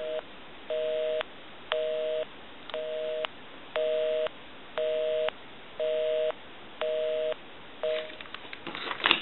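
Telephone busy signal: two tones sounding together, beeping about once a second, half on and half off, stopping near the end. The number being called is engaged.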